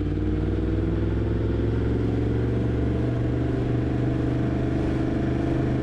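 Yamaha MT-10's crossplane inline-four engine running under way at a steady cruise. Its pitch eases down slightly in the first couple of seconds and then holds steady.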